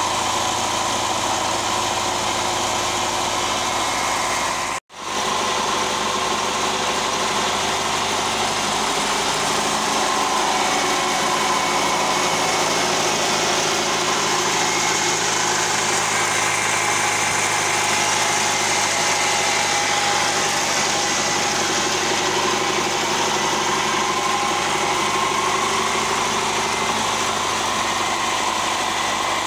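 Belarus tractor's diesel engine running steadily while it powers a flour mill, broken once by a momentary gap about five seconds in.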